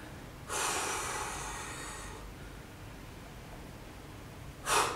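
A woman breathing hard to recover after a set of push-ups: a long heavy exhale starting about half a second in and lasting over a second, then a short, sharp breath near the end.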